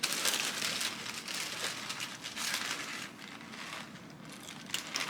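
Packing paper crinkling and rustling as it is handled, busier in the first half and quieter toward the end.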